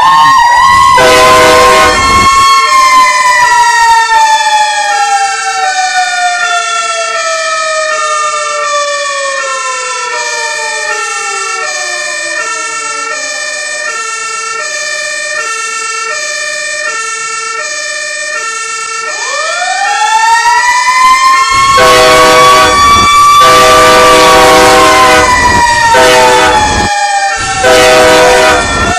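Layered emergency-vehicle siren mix: a mechanical coaster siren of the Federal Q2B kind slowly winds down over about twelve seconds and winds back up about twenty seconds in, over a two-tone hi-lo siren alternating throughout. Loud air-horn blasts sound about a second in and again repeatedly near the end.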